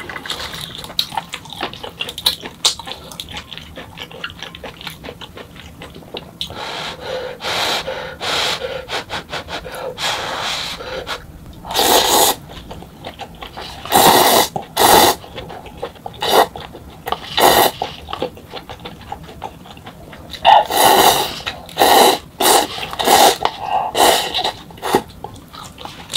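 Close-miked eating sounds: quiet chewing in the first half, then a run of loud, short slurps of instant cup ramen noodles from about halfway in, clustered again near the end.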